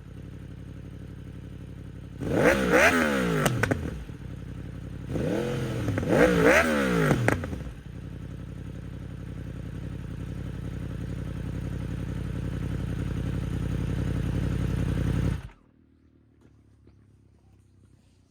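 Yamaha YZF-R1 inline-four idling through an exhaust with its inner silencer (baffle) fitted. It is blipped up and back down in two short bursts of revs a few seconds apart, then idles steadily until it is switched off suddenly about fifteen seconds in.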